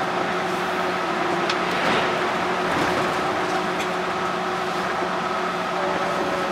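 Yurikamome rubber-tyred automated guideway train running steadily, heard from inside the car: a constant running rumble with several steady humming tones from the drive, and a few faint ticks.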